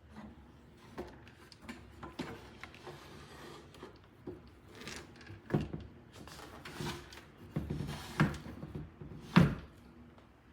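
A console table's drawer sliding and knocking as it is handled, in a run of short rubs and knocks; the loudest is a sharp knock about nine seconds in.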